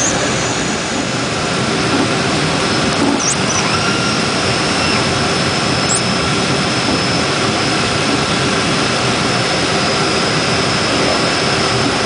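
De Havilland DHC-6 Twin Otter's twin Pratt & Whitney Canada PT6A turboprop engines and propellers running steadily, heard loud inside the cockpit. A thin high whine joins about three seconds in.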